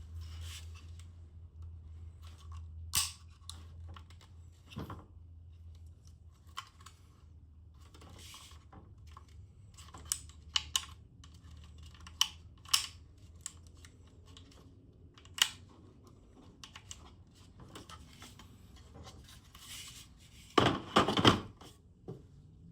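Unboxing handling noises: scattered clicks and rustles of packaging being opened and parts being handled, with a louder burst of rustling near the end, over a steady low hum.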